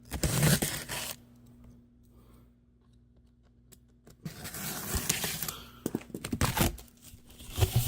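Package being opened by hand: a burst of tearing and rustling, a quiet pause with a few light clicks, then a longer stretch of tearing and crinkling packaging.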